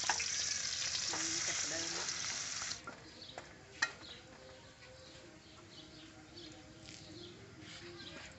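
Food sizzling loudly in a steel wok on a portable gas stove. The hiss drops off sharply about three seconds in, and quieter frying follows with clicks and scrapes of a metal spatula against the wok.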